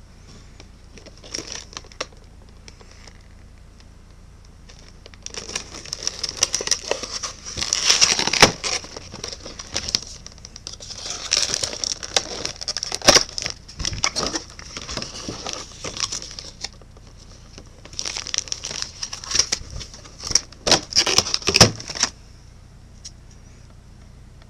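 Packaging being handled and opened: crinkling and tearing in irregular bursts with sharp clicks and snaps, starting about five seconds in and stopping a couple of seconds before the end.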